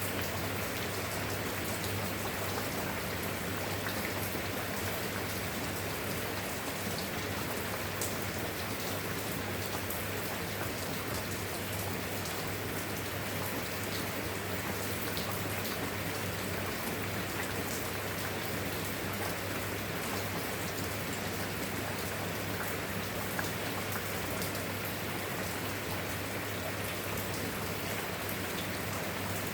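Steady rain falling, with scattered individual drop ticks and a steady low hum underneath.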